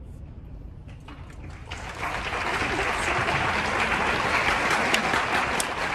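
Applause: a few scattered claps about a second in, swelling into steady applause from many hands by two seconds in.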